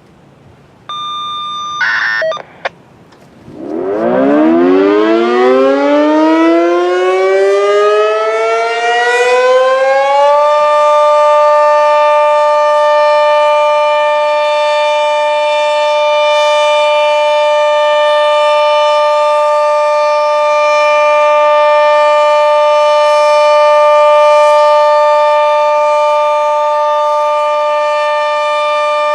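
A Sentry 40V2T two-tone electromechanical warning siren winding up from a standstill, its pitch rising for about seven seconds before settling into a steady two-note chord: the full-alert (steady) signal. A short tone sounds about a second in, before the wind-up.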